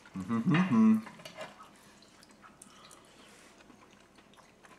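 A man humming a drawn-out "mmm" in enjoyment of the food, then faint scattered clicks of forks against ceramic bowls and small wet eating sounds.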